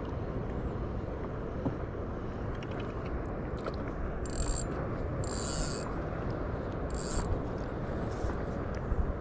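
Spinning fishing reel being worked while a hooked fish is brought in. Short high buzzes from the reel come about four, five and a half and seven seconds in, over a steady low rumble of wind and water.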